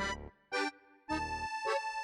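Background music: a bouncy tune of short plucked-sounding notes, then a held note from about a second in.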